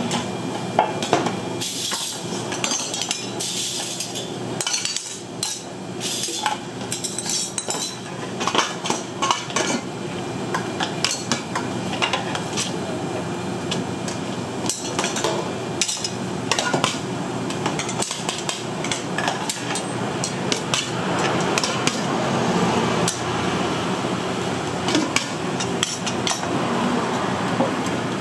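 Kitchenware clatter: metal spoons and a ladle clink and knock against ceramic soup bowls and stainless steel pots, with many sharp knocks throughout, over a steady hum.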